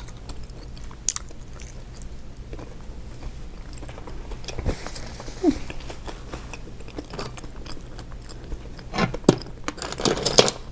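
Close-miked eating of boiled seafood: chewing and biting with scattered small crunches and wet clicks, getting busier near the end.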